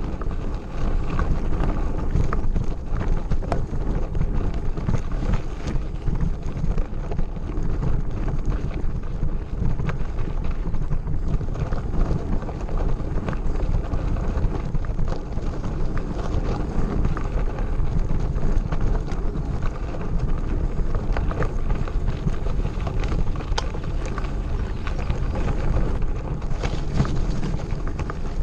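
Mountain bike ridden fast over a gravel forest road: tyres crunching and the frame and parts rattling in constant irregular clicks and knocks, with wind buffeting the microphone.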